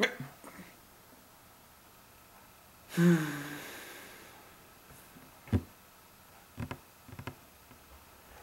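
Quiet room with one breathy, sigh-like vocal sound about three seconds in, falling in pitch and fading over about a second, then a few short knocks and taps on a wooden table.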